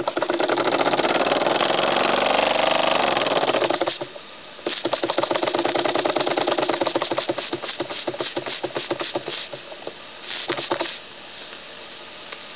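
1950s Jensen live-steam model engine running fast, its exhaust chuffing in a very rapid patter. It stops about four seconds in and starts again a moment later. Its beats then slow and fade out near the end.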